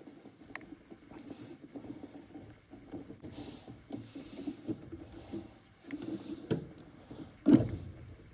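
Irregular clicking, knocking and rattling of hands and tools working on a furnace, with one louder knock near the end.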